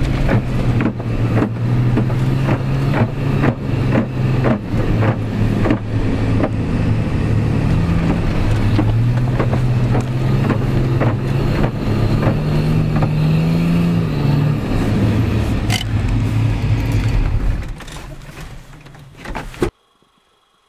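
Old Nissan Patrol's engine running under load, heard from inside the cabin, with repeated knocks and rattles as the four-wheel drive jolts over a rough snowy track. The engine note climbs gently, then eases back, goes quieter and cuts off abruptly near the end.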